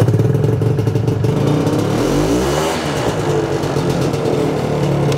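Ski-Doo Tundra's single-cylinder Rotax two-stroke idling. About two seconds in, the engine note sags and climbs back up as the RER CDI box kills spark, lets the motor stall for a split second and restarts it turning the other way, switching from reverse back to forward, then it idles steadily again.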